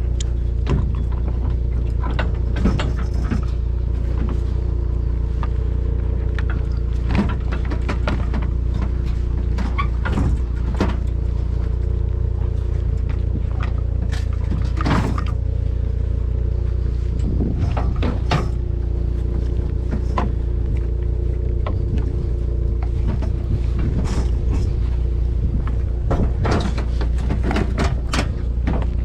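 Vehicle engine running with a steady low drone, with scattered sharp clicks and knocks throughout.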